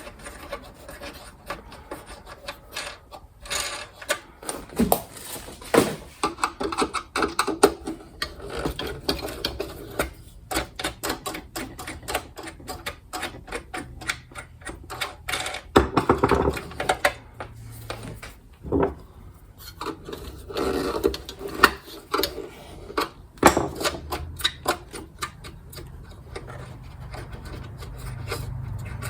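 Irregular metal clicks, scrapes and knocks as a flat-tip screwdriver works the wing nuts loose on a kerosene heater and its metal parts are handled.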